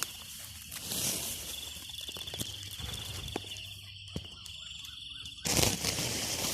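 Footsteps and rustling through vegetation over a steady, pulsing high trill of insects, with a loud brushing burst about five and a half seconds in.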